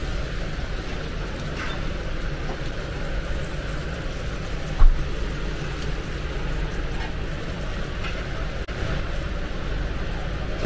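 Steady commercial kitchen noise with a low rumble, from a flat-top griddle where pitas are warming under a steel press. A single sharp knock comes about five seconds in.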